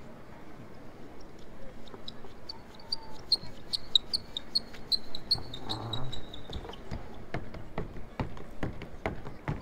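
Street ambience with a run of high chirping notes, about two to three a second, giving way about seven seconds in to a string of sharp taps in an uneven rhythm.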